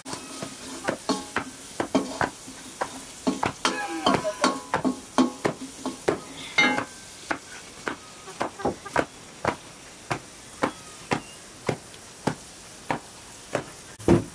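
Food sizzling in an iron wok (karahi), with a metal ladle clinking and scraping against the pan as it is stirred: sharp irregular knocks about twice a second, a few with a short metallic ring near the middle.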